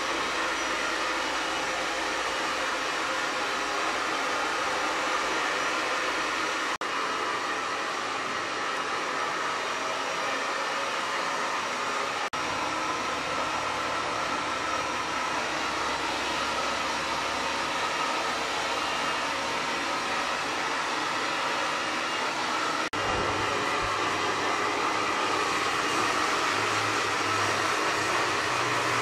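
Hair dryer blowing steadily, a continuous airy rush with no pauses.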